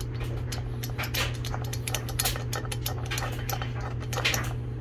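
Small irregular metallic clicks and ticks as a spark plug is turned into a new air-cooled aluminium cylinder head by hand, over a steady low hum.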